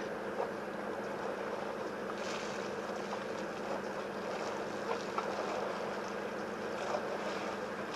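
Steady outdoor background noise: a low rumble and hiss of wind on the microphone over a constant low hum, with a few faint clicks scattered through.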